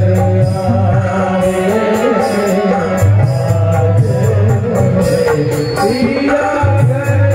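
Live amplified song: a male singer sings into a microphone with tabla and dholak drumming along in a steady rhythm.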